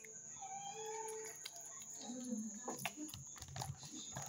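Faint chewing and small scattered clicks of food being eaten by hand from a metal plate.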